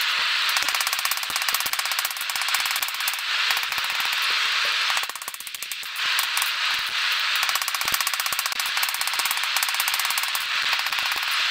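Blacksmith's hand hammer striking hot iron nail stock on an anvil in a rapid run of ringing blows while hand-forging nails. The hammering pauses briefly about five seconds in, then starts again.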